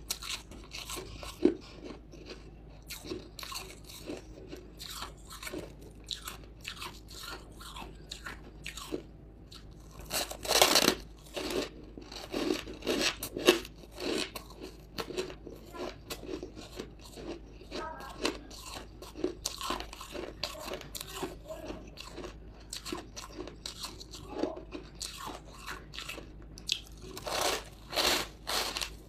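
Hard frozen buckwheat ice chunks being bitten and chewed close to the microphone: a dense run of crisp crunches, with louder bursts of bites about ten seconds in and again near the end.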